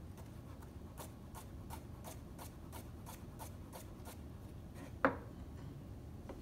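Chef's knife slicing a carrot into rounds on a cutting board: evenly spaced chops, about three a second, for about three seconds. One louder knock about five seconds in.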